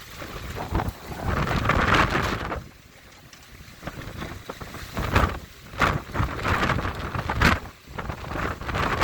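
Blizzard wind gusting hard against the microphone in irregular surges, with a short lull about three seconds in and sharp gusts again in the second half.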